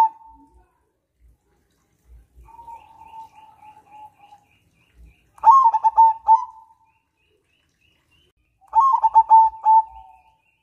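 Zebra dove (perkutut) singing: rapid staccato cooing phrases, two loud ones in the second half after a softer drawn-out coo. Faint high chirps of other small birds in the background.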